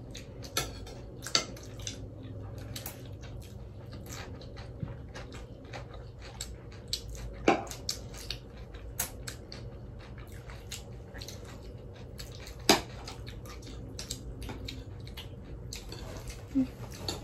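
Eating utensils clicking and scraping against plates and bowls during a meal, with two sharper clinks about halfway and about three-quarters of the way through.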